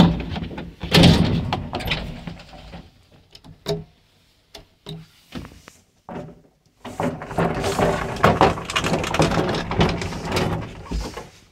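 The hand-worked doors of an old traction elevator are opened and closed: wooden doors rattling and rubbing in two long stretches, with a few sharp metal latch clicks in the quieter middle.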